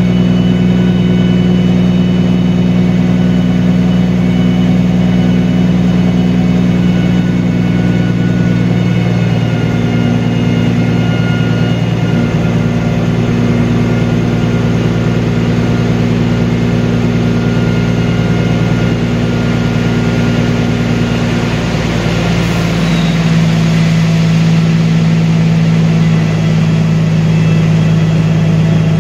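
Peterbilt semi's diesel engine running steadily while the hydraulic hoist raises the end-dump trailer's box. The engine note shifts twice, about a third of the way in and again about three-quarters of the way in, and a hissing rush builds and fades in between.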